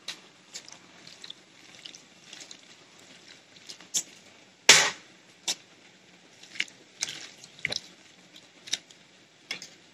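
Kitchen handling sounds as handfuls of coriander and mint leaves go into the chicken marinade: scattered light clicks and soft wet rustles, with one sharper knock a little under five seconds in.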